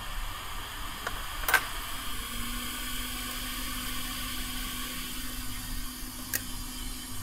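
Hot air rework station's blower running as a steady hiss, with a low hum joining about two seconds in. A few light clicks, the sharpest about a second and a half in.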